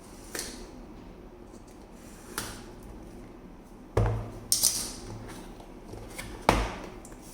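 A cardboard product box being handled and opened: scattered knocks and taps, with louder thumps about four seconds in and again near the end, and a brief scrape of cardboard just after the first loud thump.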